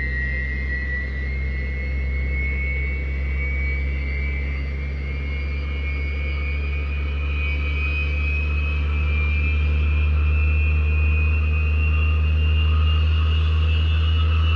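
Rolls-Royce RB211 turbofan of a Lockheed L-1011 TriStar spooling up during engine start: a whine rising slowly in pitch and growing a little louder toward the end, over a steady low hum.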